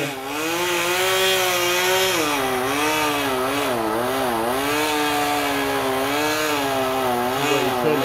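Chainsaw cutting a big piece off a standing tree trunk, the engine running loud and its pitch rising and dipping over and over as the chain bites into the wood.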